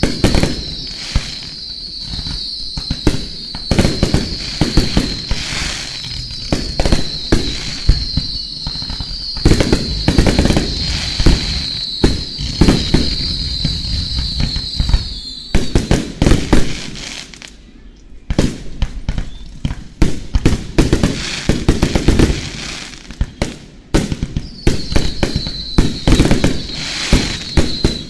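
Fireworks going off at close range: a dense, rapid string of shell bursts and bangs with crackling, thinning briefly twice. A steady high hiss runs under the bursts, cuts off suddenly about halfway through, and returns near the end.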